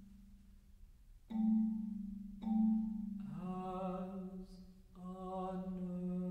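Marimba playing low notes: two single mallet strokes that ring on, then a sustained low note. About three seconds in, a tenor voice joins, holding a low note with a slight waver, breaks briefly, then holds it again.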